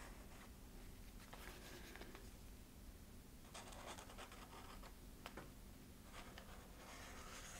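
Felt-tip marker scratching faintly as it is drawn along the edge of a cardboard template onto a sheet of foam, in several short strokes.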